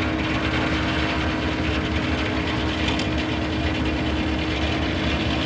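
Double-cylinder Frick steam traction engine driving a sawmill, running steadily with a constant tone over an even low rumble.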